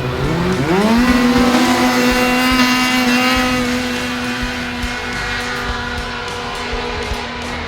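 A snowmobile engine revs up sharply about half a second in, then holds at high, steady revs as the sled runs up the hill. It eases off slightly in the second half.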